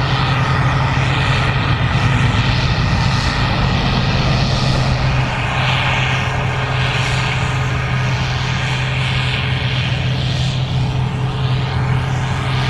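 Gleaner R65 combine running steadily under harvest load, a constant low engine drone. From about halfway through, a higher hiss pulses roughly once a second.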